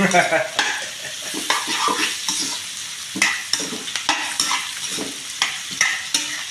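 Spatula stirring and tossing carrot strips, bell pepper and ginger in a hot wok, the vegetables sizzling in oil. Short scraping strokes come irregularly, about two a second, over a steady sizzle.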